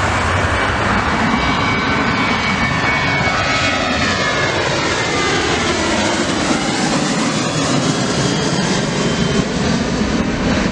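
Boeing 737-700 jet airliner's CFM56-7B turbofan engines at takeoff power as it lifts off and climbs away: a loud, steady roar with whining tones that slide in pitch.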